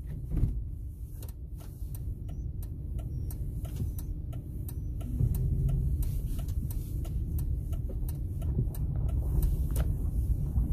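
Pickup truck driving, heard from inside the cab: a steady low road and engine rumble that gets louder about halfway through, with many scattered short clicks and ticks over it.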